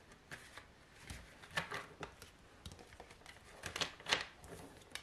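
A tarot deck shuffled and handled by hand: irregular soft slaps and flicks of cards, ending with a card dealt onto the table.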